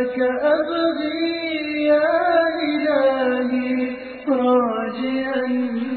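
One voice chanting in Arabic, in the melodic style of Quran recitation, holding long ornamented notes. About four seconds in it stops briefly and starts a new phrase.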